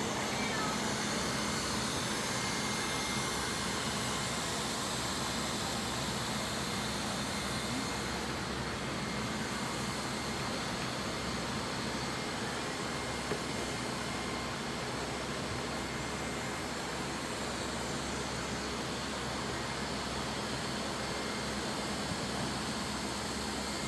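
Lefant M201 robot vacuum running: a steady whir of its suction motor and brushes, with a faint high whine. There is one small tick about halfway through.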